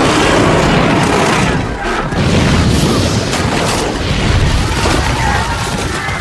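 Battle sound effects: loud booms of fire blasts and crashes, with a few sharper crashes between about one and a half and four seconds in, over a film score.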